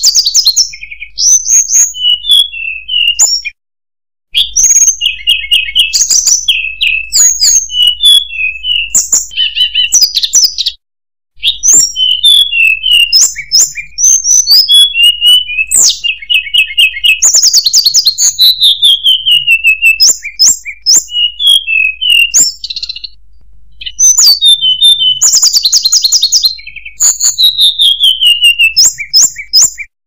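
Tledekan gunung, a blue flycatcher, singing a varied song of high sweet whistles, falling slurs and quick trills. The song is broken by two brief cuts to silence.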